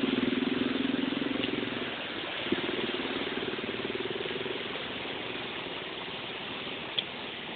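A motor vehicle's engine running with a low, even throb, loudest at first, fading after about two seconds, swelling briefly again and then dying away into steady background noise. A sharp click sounds twice, a couple of seconds in and near the end.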